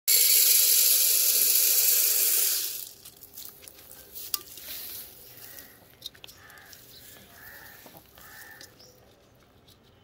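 Wheat grains poured from a bowl onto a metal feeding pan: a loud, dense rattling hiss that stops abruptly about three seconds in. After it come faint scattered clicks and soft rustles as rabbits eat the wheat from the pan.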